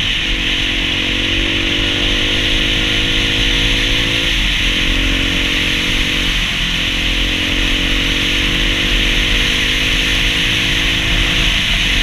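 Dual-sport motorcycle engine running under way, its revs climbing slowly and dropping sharply about four and a half seconds in and again near the end. Heavy wind rushes over the microphone throughout.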